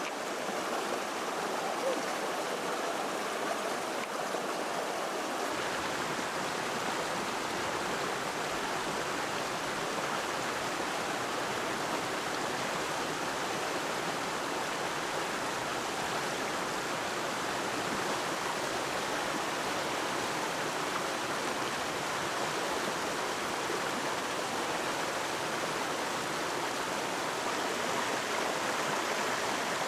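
Flowing water rushing steadily, with a deeper rumble joining about five seconds in.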